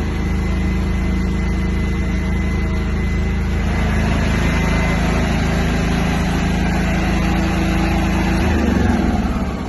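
7 kW Bajaj M portable petrol generator set running steadily. Near the end its low hum changes and the sound begins to fade.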